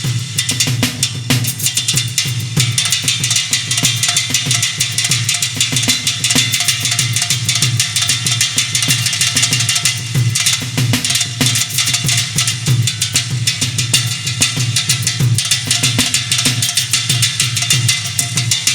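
Drum kit played in a fast, dense solo: rapid strokes on the drums with cymbals ringing throughout.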